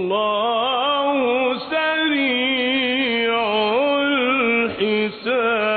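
A man reciting the Quran in the melodic, ornamented style: one voice held on long notes that wind up and down in turns, with two brief breaks.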